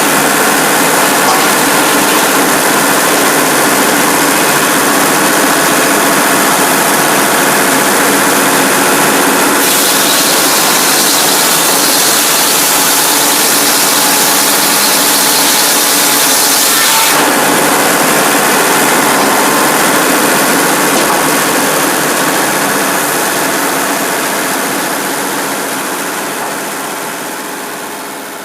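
Cummins diesel engine running a Frick 00 circular sawmill, a loud, steady machine noise. From about ten seconds in, a harsher hiss rides on top of it for some seven seconds. The whole sound fades away over the last several seconds.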